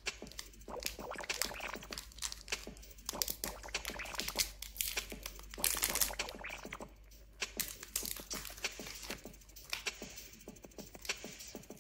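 KitKat Hazelnut Crunch wrapper crinkling and tearing as it is ripped open and peeled off the chocolate bar, a dense irregular crackle that is loudest about six seconds in.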